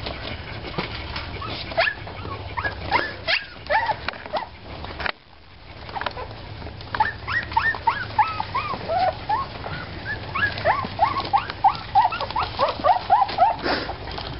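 Three-week-old puppies making short, high yips and squeals as they play-fight. There is a brief lull about five seconds in, then the calls come quickly one after another through the second half.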